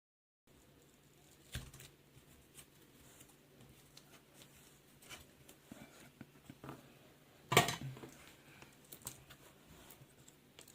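Small clicks and taps of hand tools handling the tablet's internals, two of them sharper and louder about one and a half seconds and seven and a half seconds in, over a faint steady low hum.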